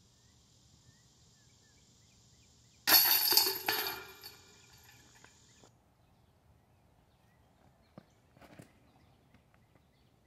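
A flying disc strikes the chains of an Innova disc golf basket about three seconds in: a sudden metallic crash, then the chains clanging and rattling as they die away over about a second.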